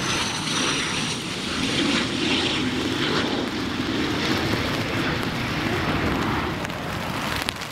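Jet aircraft engines: a steady, fairly loud rushing noise, with a thin high whine that fades out after about a second.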